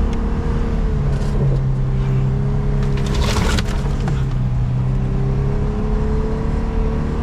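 Vehicle engine running steadily while driving through deep snow, with a brief rush of noise about three seconds in.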